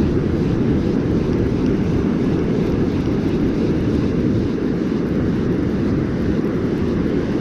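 Steady low rumble of wind buffeting the microphone over the wash of ocean surf at the shoreline.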